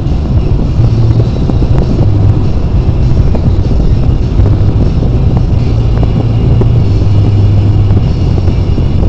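Steady road and engine noise inside a car cabin at highway speed, with a low drone that swells and fades every second or so.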